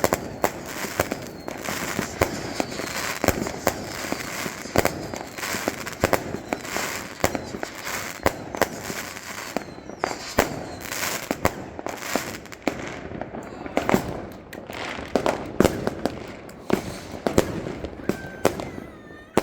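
A firework board going off: a rapid, irregular string of firecracker bangs, several a second, with crackling in between.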